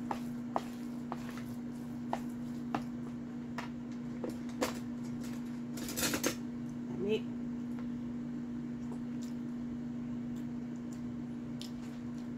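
Metal utensil clinking and scraping against a glass mixing bowl while a thick cauliflower hummus is stirred, in scattered sharp clicks with a short louder burst of noise about six seconds in. A steady low hum runs underneath.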